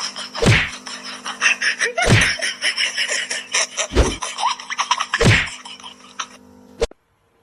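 Four heavy, dull thumps, about a second and a half apart, over constant clattering and rustling with a steady hum underneath. The sound ends in a sharp click and cuts off abruptly near the end.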